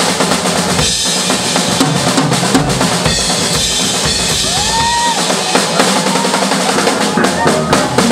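Drum kit solo: fast, dense strikes on snare, toms and bass drum with cymbals washing over them.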